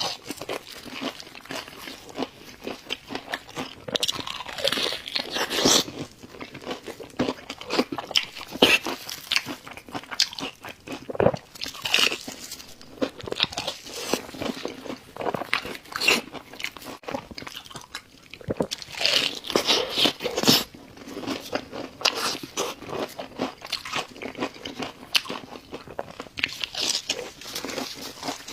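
Close-up eating sounds: crunchy bites and chewing of food, irregular crackly crunches.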